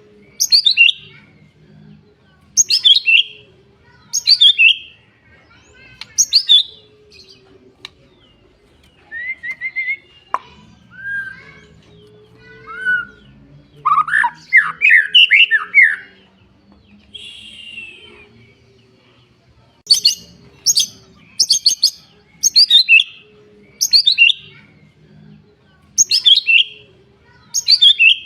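Songbird repeating loud, sharp, high-pitched descending call phrases every one to two seconds, the rapid 'shot' (tembakan) calls that Indonesian bird keepers play as tutor song for white-rumped shamas. In the middle comes a run of lower, varied warbled phrases before the sharp calls resume.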